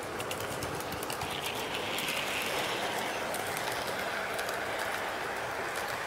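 HO scale model train running on the track: a steady rolling hum with quick, irregular clicks from the wheels and rails, and a motor whine that swells about a second in and drops in pitch later.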